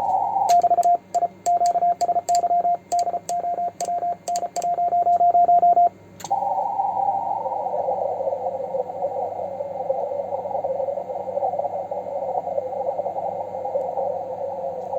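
Morse code sent quickly on a home-made 3D-printed paddle, heard as a transceiver's keyed sidetone with a click at each dot and dash. After about six seconds the sending stops and the receiver's hiss through a narrow CW filter carries on steadily.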